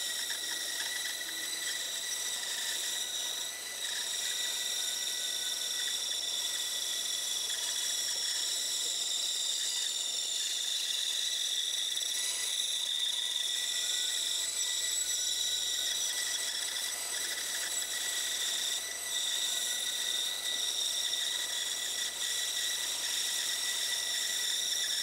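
Bandsaw running with a steady high whine, its blade cutting a curve through a thick laminated wood blank.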